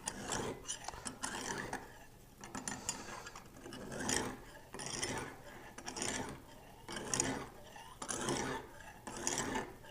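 Extra-coarse oiled honing stone of a Lansky controlled-angle sharpener drawn along a steel knife edge: short rasping scrapes about once a second, with a short pause about two seconds in. The stone is taking metal off a damaged, pitted blade.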